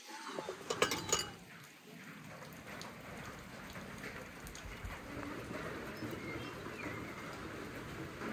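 Steady rain falling, an even hiss that settles in about two seconds in. A few sharp clicks come just before it, about a second in.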